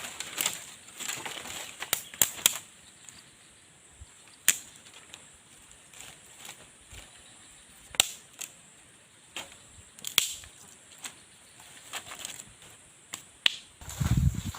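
Dry wood giving sharp, irregular cracks and snaps, about one every second or two, as a campfire is being got going. Dull thumps near the end.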